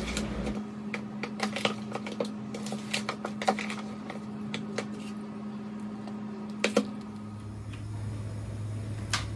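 A metal spoon clinking and scraping against a bowl as pieces of marinated fish are turned in masala, in irregular taps with one sharper knock near seven seconds. A steady low hum runs underneath.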